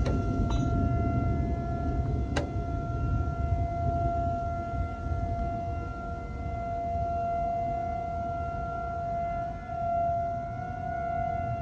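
Outdoor tornado warning siren sounding a steady, unchanging tone, rising and falling slightly in loudness, with a low rumble beneath it. A single sharp click about two seconds in.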